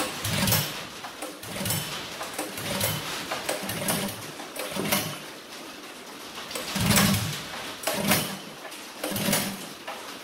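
Modified Predator 212 single-cylinder go-kart engine being pull-started cold: about eight yanks on the recoil starter, roughly one a second, each a short cranking burst, the loudest about seven seconds in. The engine does not catch; it is hard to start from cold.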